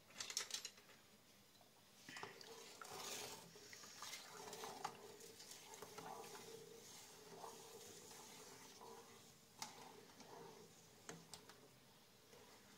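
A spoon stirring in a pot of simmering brine, faint light scraping against the pot with a few small clicks and knocks.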